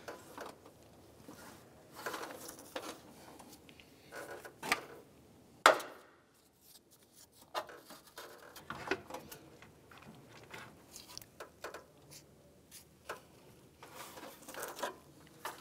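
Scattered clicks, knocks and rubbing as an A/C condenser is lifted and worked into its plastic retaining tabs behind the radiator, with one sharp click a little over five seconds in the loudest.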